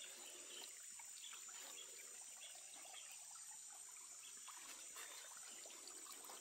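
Faint trickle of water running into a stone-and-concrete water storage tank.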